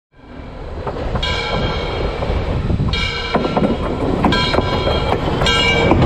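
Train horn sounding four short blasts over the rumble of an approaching train. The rumble grows louder throughout, with a few sharp clacks from the rails as the train runs over the track.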